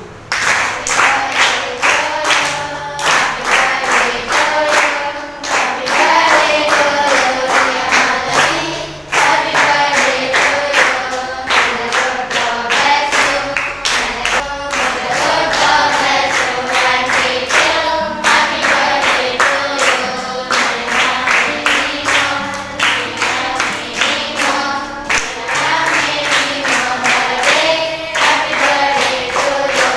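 A group of girls singing a prayer song together in unison, clapping along to a steady beat.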